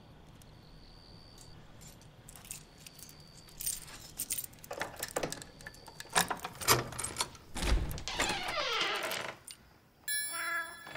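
Keys jangling, with irregular metal clicks as at a door lock, building from about three seconds in. A short musical tone sounds near the end.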